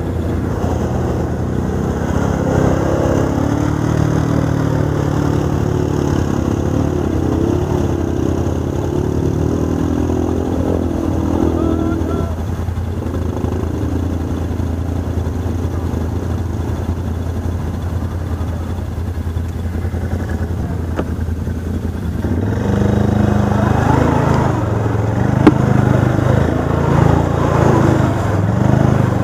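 ATV engine running under way, with a steady hum at first that drops lower for a while. About three quarters of the way in it revs up and pulls harder, with one sharp knock shortly after.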